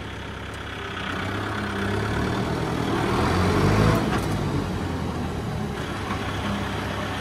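Tractor engine running. It builds in revs and loudness over the first four seconds or so, then eases back to a steady run.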